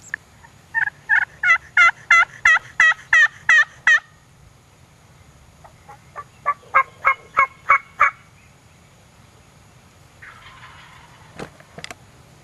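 A hunter's turkey call sounding two runs of hen yelps, each a quick series of breaking two-tone notes, about three a second, used to call in a tom. A faint rustle and a couple of clicks come near the end.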